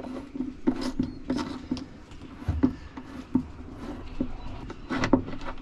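A spanner working a tight nut off a through-hull bolt: irregular small metallic clicks and knocks over a steady low hum.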